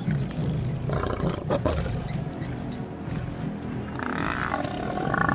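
Lions growling at a Cape buffalo: a continuous low, rumbling growl with a harsh snarl about a second in, and a louder, higher, drawn-out snarling call near the end.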